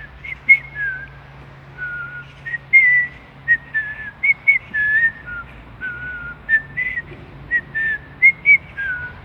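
A person whistling a melody by mouth, a quick run of short, clear notes stepping and sliding up and down, under a railway bridge whose acoustics carry the whistle.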